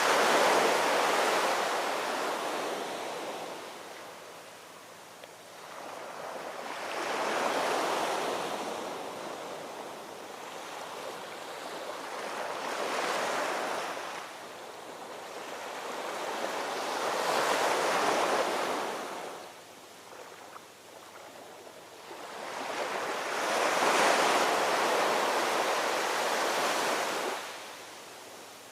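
Ocean surf: waves breaking and washing in one after another, about five in all, each swelling up and fading away over a few seconds.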